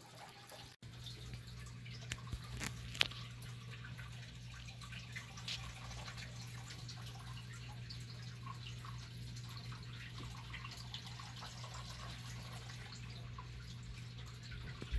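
Faint room tone: a low steady hum with scattered light ticks and clicks, a few of them close together about two to three seconds in.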